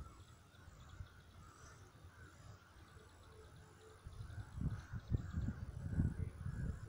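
Faint background of distant birds calling, with a few low rumbles about four to six seconds in.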